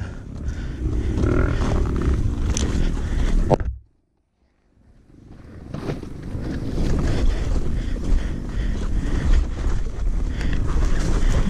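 Honda dirt bike riding slowly along a rutted trail: a low engine rumble mixed with wind and rumble on the rider's camera microphone. About four seconds in, the sound cuts out completely for about a second, then comes back.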